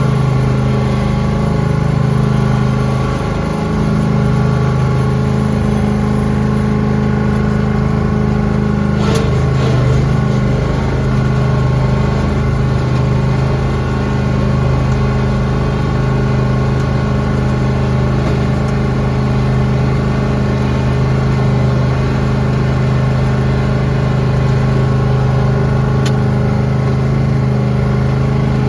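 Lawn tractor engine running steadily while plowing snow, with a brief sharp click about nine seconds in and another a few seconds before the end.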